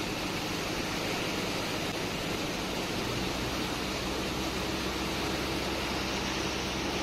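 Steady rush and splash of water from a pressure hose jetting into a sand pile and churning sand-laden slurry, over a steady low hum of pump machinery.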